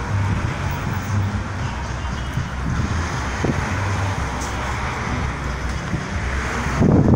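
Steady road traffic noise, a low rumble of passing cars, swelling louder near the end.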